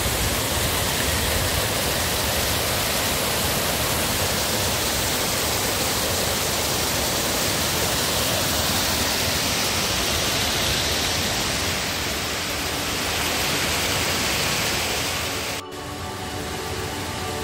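Water of the Semešnica waterfalls cascading over mossy rock steps: a steady rushing of falling water. It cuts off abruptly near the end.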